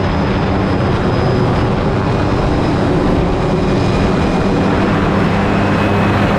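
Helicopter engine and main rotor running steadily at close range, heard from on board: a low rotor beat with a thin, high, steady turbine whine above it, over a rush of rotor wash.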